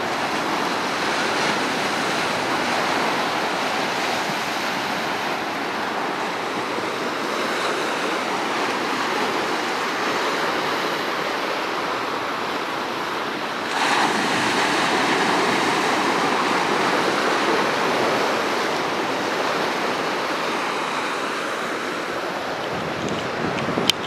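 Sea surf breaking and washing over rocks on the shore: a continuous rushing of water, swelling louder as a bigger wave breaks just past halfway, then easing off.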